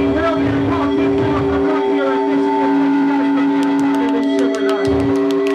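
Live hip-hop performance through a club PA: a backing track of held synth chords with a heavy low beat, and a rapper's voice over it. A quick run of sharp hi-hat-like ticks comes in about three and a half seconds in.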